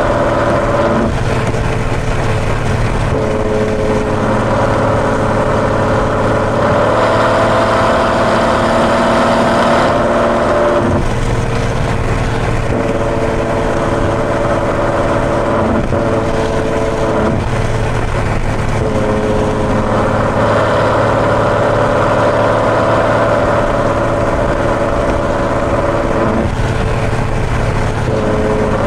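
Ferrari GTC4Lusso's V12 with a Capristo aftermarket exhaust, running at a steady cruise on the road, its note stepping up and down in pitch several times. Tyre and wind noise runs underneath.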